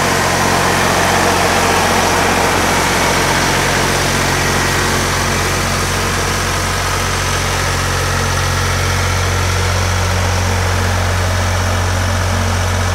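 Diesel engine of a Miller Big Blue 402 P engine-driven welder-generator running steadily.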